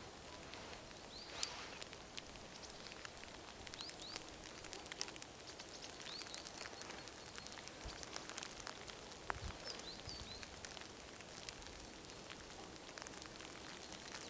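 Faint snowy outdoor ambience with a few short high bird chirps and scattered light ticks, and one sharp click about a second and a half in.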